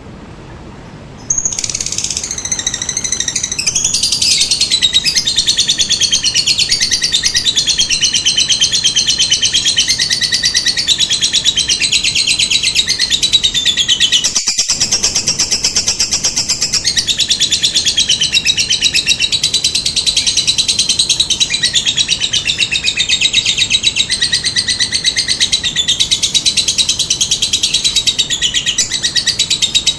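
Lovebird's long unbroken chattering trill (ngekek), a fast high-pitched pulsing chatter with wavering notes that starts about a second in and runs on almost without a pause.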